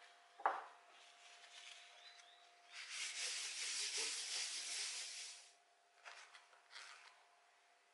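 Folded paper towel rubbing oil over the nonstick plate of an electric griddle: a steady scrubbing hiss for about three seconds in the middle, the loudest sound here. A short knock comes about half a second in, and two light paper rustles follow as a baking-paper ring is set down on the griddle.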